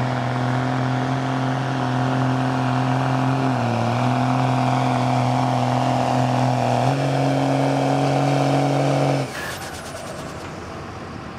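Dodge Ram dually's 5.9 L Cummins turbo-diesel straight-six pulling hard under load. It holds a steady high-revving note, dips briefly in pitch, then rises, and cuts off sharply about nine seconds in as the load comes off.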